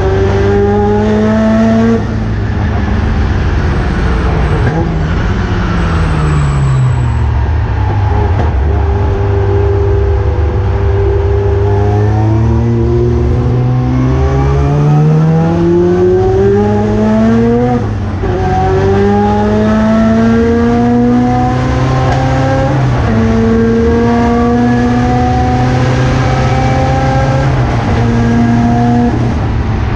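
Mazda RX-7 race car's rotary engine at full racing speed. Its pitch falls for several seconds as the car slows for a corner, then climbs hard again through three gear changes, each upshift a sudden drop in pitch.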